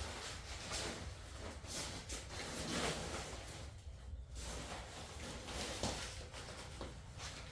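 Rustling and soft handling noises with a few light knocks and scrapes; no machine is running.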